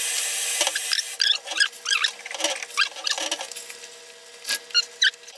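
Fresh vegetables being handled and put into a stainless steel pot of water, with a run of short squeaks and light pattering as the pieces rub and drop in. A steady hiss stops about a second in.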